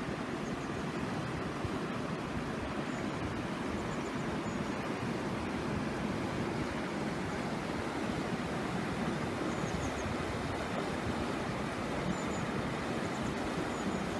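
Mountain stream rushing over rocks: a steady, even wash of water, with a few faint high chirps now and then.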